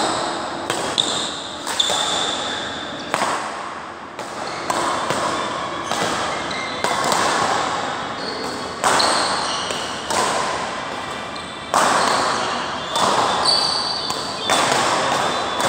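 Badminton rackets striking a shuttlecock in a doubles rally: a string of sharp smacks about every second or two, each echoing in a large indoor hall.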